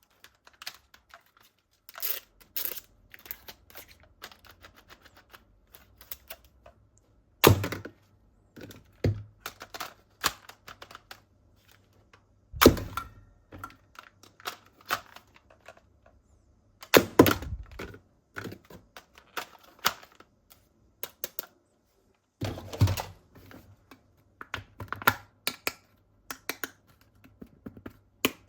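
Plastic toy parts and packaging being handled. Irregular clicks and taps run throughout, with a heavier knock roughly every five seconds.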